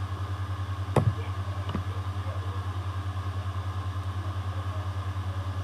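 A steady low hum that pulses about eight or nine times a second, with a sharp mouse click about a second in and a fainter click shortly after.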